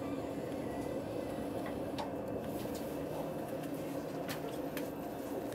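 Steady hum of a passenger train, with a few faint clicks.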